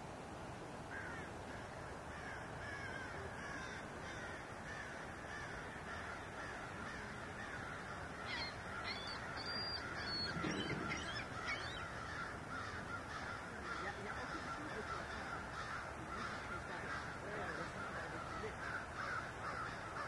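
A flock of birds calling, a dense run of short overlapping calls over a steady hiss, with a few higher whistled calls about halfway through.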